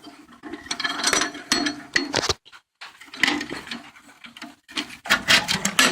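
Metal tools clanking and rattling in a small welded steel box as they are handled: irregular knocks and clatters, with a brief pause about two and a half seconds in and a loud cluster near the end.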